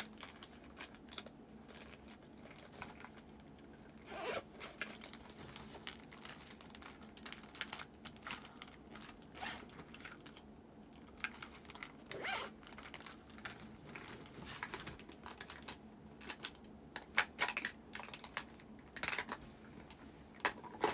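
Rustling, crinkling and scattered small clicks of objects being handled close to the microphone, in irregular spurts with busier stretches about four seconds in, around twelve seconds and near the end.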